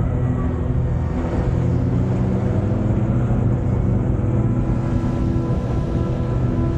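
Motorcycle engine running at a steady cruise, with a heavy, even rumble of wind and road noise.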